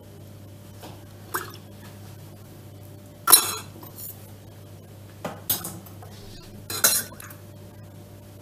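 Metal spoon clinking against a small stainless-steel milk pot as milk is scooped out to soak a cake layer. A handful of sharp clinks, the loudest about three seconds in.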